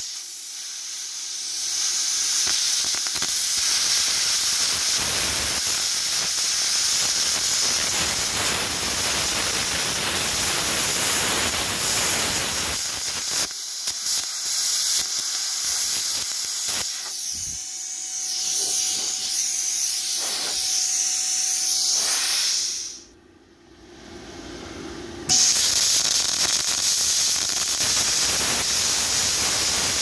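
CUT-50DP air plasma cutter cutting metal: the loud, steady hiss of the plasma arc and its air stream. The arc stops for about two seconds a little after twenty seconds in, then starts cutting again.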